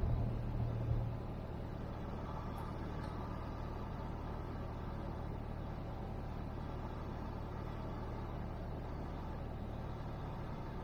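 Cessna 172N's Lycoming O-320 engine and propeller droning steadily inside the cabin, throttled back as the plane comes in to land and rolls out on the runway. A brief louder low rumble in the first second.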